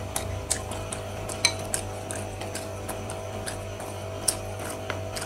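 Close-up chewing of crispy floured, deep-fried shrimp: irregular sharp crackles and clicks from the batter crunching in the mouth, over a steady low hum.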